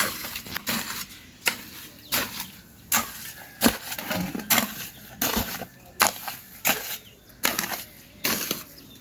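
Footsteps walking at an even pace, a little more than one step a second, with a faint outdoor background.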